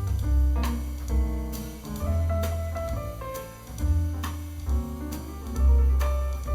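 Swing jazz piano trio playing: piano melody over a deep double bass and a drum kit keeping time with cymbal strikes.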